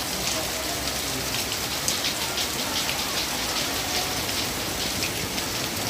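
Steady rain falling on a wet yard and roofs, an even hiss with many sharp ticks of drops splashing close by.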